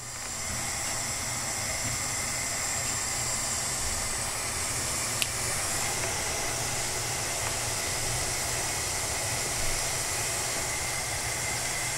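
A pan of water heating on the stove with the slugs in it, giving a steady hiss with a low rumble underneath as it comes toward the boil. A single faint click comes about five seconds in.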